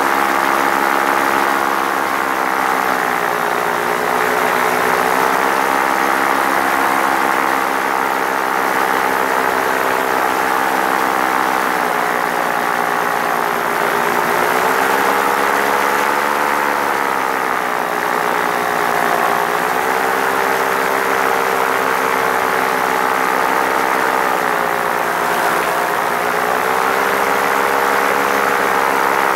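Paramotor engine and propeller running steadily in low flight, the engine pitch rising and falling a little several times.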